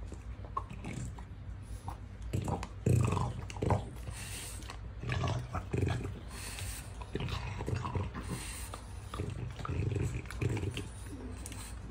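French bulldog gnawing on a lamb bone, with irregular crunches and scrapes of teeth on bone, loudest about three seconds in.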